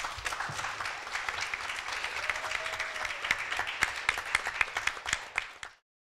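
Audience applauding, a dense patter of many hands clapping that stops abruptly near the end.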